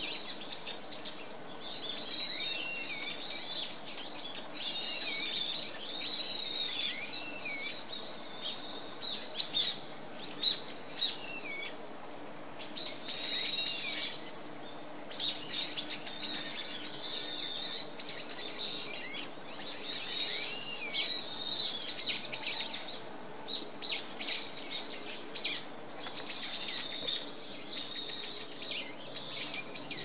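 Small songbirds chirping and twittering: many quick, high calls in busy bouts with brief pauses.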